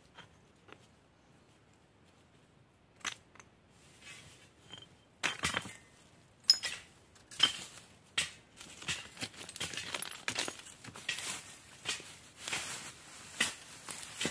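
Hands working through dry leaf litter and small stones on the ground: scattered sharp clicks and knocks of stone at first, then near-continuous rustling and scraping with frequent clicks from about eight seconds in.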